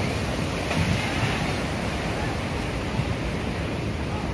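Big waves breaking and seawater rushing over the beach and flooding the shore, a steady noisy rush of surf, with wind buffeting the microphone.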